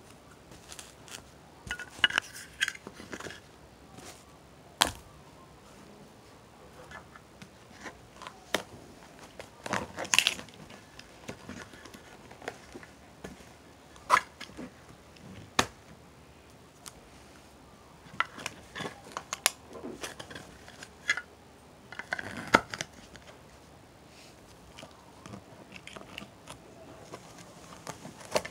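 Scattered, irregular knocks, taps and crinkling of household objects being handled and tapped, with no steady beat.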